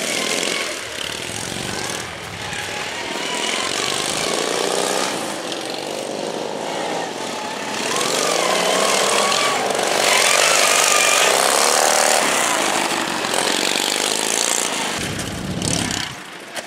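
Several racing lawn mower engines running hard together, their pitches rising and falling as they rev and back off around the track. They are loudest around the middle.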